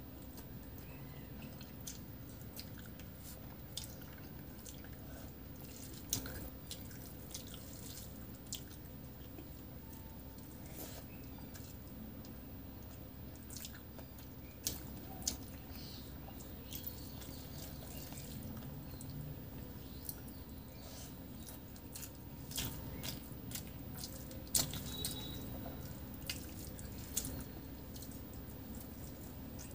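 Wet mouth clicks and smacking of a person chewing rice and curry eaten by hand. The clicks are scattered and come more often near the end, over a steady low background hum.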